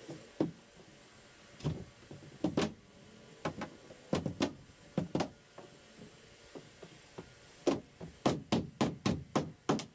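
Irregular knocks and taps from a bulkhead panel being handled and pressed into place inside a fiberglass hull, with a quicker run of sharp knocks in the last two seconds.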